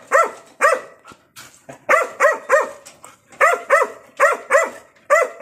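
Belgian Malinois barking repeatedly, about ten barks in quick runs of two or three.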